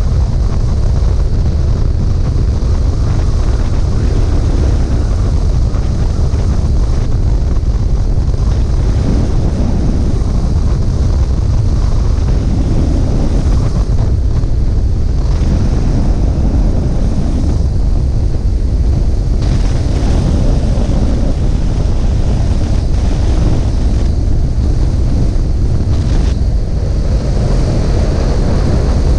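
Light propeller aircraft's engine and propeller running on final approach and flare, largely covered by a steady, heavy rumble of wind buffeting the microphone.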